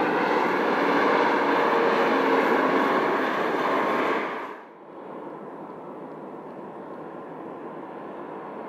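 Jet engines of an Airbus A220-300 (Pratt & Whitney geared turbofans) landing. A loud, steady rushing noise suddenly falls away about four and a half seconds in, leaving a much quieter steady hiss.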